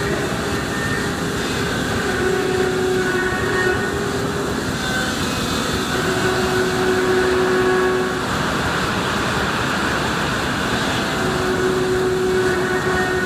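Machine spindle running with an abnormal noise: a steady mechanical whir with a humming tone that comes and goes every few seconds.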